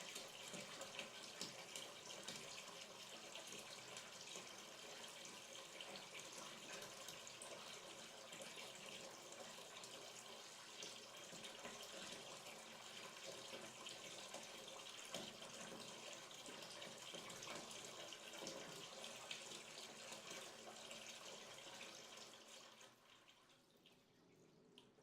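Hot water pouring into a bathtub to fill it, a steady splashing rush that falls away and stops near the end.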